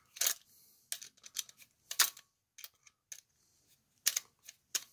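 Irregular sharp clicks and ticks from a plastic Leviton GFCI receptacle being handled while its terminal screws are backed out, with louder clicks about a third of a second in, about two seconds in, and about four seconds in.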